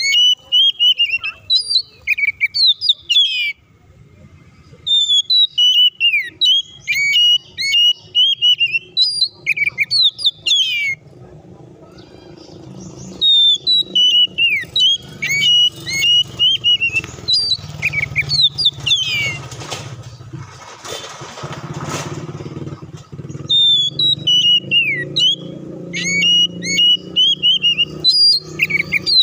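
Oriental magpie-robin singing in bouts of rapid, varied whistled phrases mixed with harsh notes, with short pauses between bouts. A low engine rumble builds in the second half.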